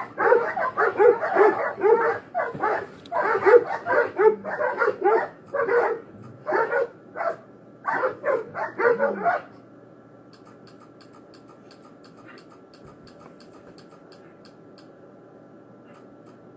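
Several dogs barking and snarling at each other in a loud, overlapping fight that stops abruptly about nine and a half seconds in, leaving only a faint steady hum with some faint rapid ticking.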